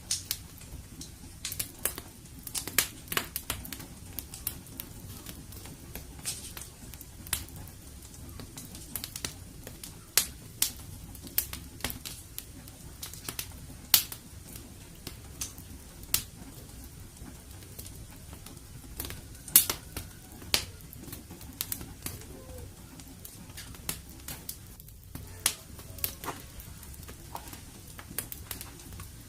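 Wood fire in a fireplace crackling: irregular sharp snaps and pops, a few of them loud, over a steady low rumble of the flames.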